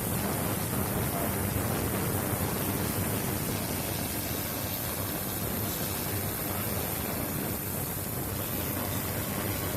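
Ultrasonic cleaner running, its citric acid and detergent bath giving a steady hissing buzz.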